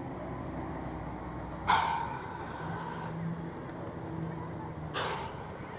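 Distant engines and traffic from buses and cars below, a steady low hum. Two short, sharp noises cut across it, a louder one just under two seconds in and a smaller one about five seconds in.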